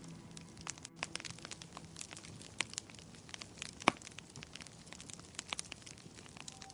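Wood fire in a fireplace crackling, with irregular small pops and one sharper pop about four seconds in.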